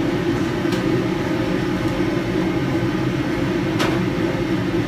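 Steady low drone of a commercial kitchen exhaust hood fan, with a couple of faint light clicks.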